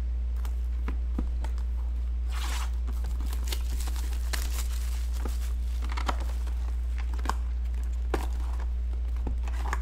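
Plastic shrink wrap being torn and crinkled off a sealed trading-card box, with scattered clicks and rustles of handling, over a steady low hum.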